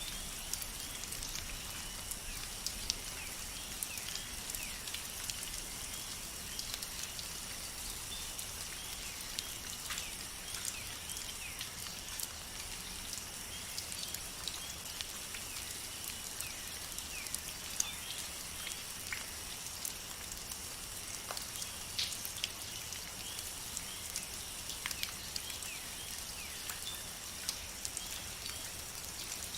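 Steady rain falling in a forest, with many separate drops ticking sharply close by, over a steady high-pitched drone.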